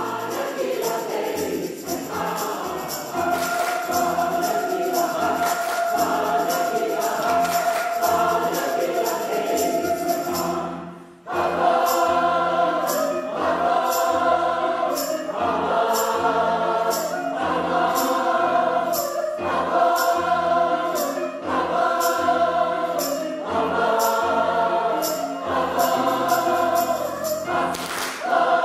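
Choir singing an upbeat gospel-style song in full harmony. Long held chords give way, after a brief break about eleven seconds in, to punchy rhythmic phrases over a steady beat of sharp hits about once a second.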